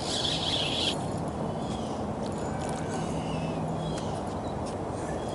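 Waterside outdoor ambience: a high insect buzz in the first second, then a few short bird chirps, over a steady low hum that stops about four seconds in and a constant low hiss.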